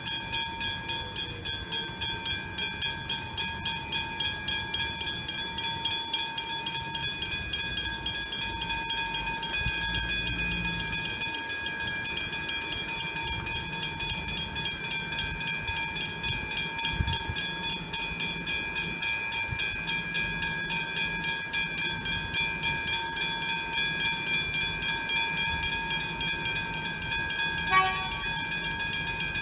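Westinghouse hybrid level-crossing bells ringing in a fast, steady beat while the crossing is activated. A short knock comes near the end.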